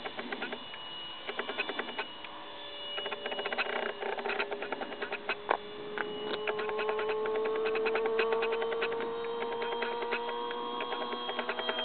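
Electric ducted fan of a radio-controlled Aero L-39 Albatros model jet whining in flight. It is a steady hum whose pitch rises slowly from about four seconds in, over constant crackling clicks.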